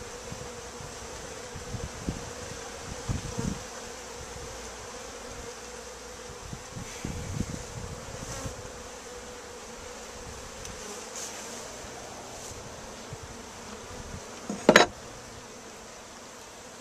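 A colony of honey bees buzzing steadily. A few low bumps are heard, and one sharp knock near the end is the loudest sound.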